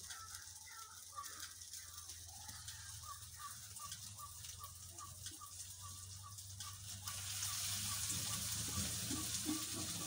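Plastic bag rustling as raw chicken pieces are shaken out, then about seven seconds in the chicken hits hot oil in a kadai and a steady, louder sizzle starts.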